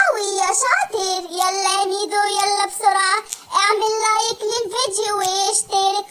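A high-pitched, child-like cartoon cat voice singing a children's song: long held notes with vibrato in several phrases, the first opening with a quick falling glide.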